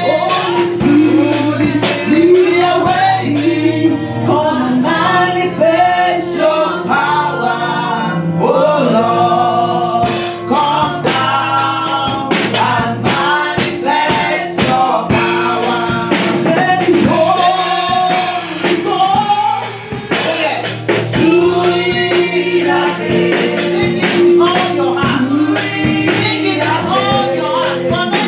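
Gospel revival song sung by a small choir at microphones with the congregation joining in, over held instrumental chords and frequent drum hits.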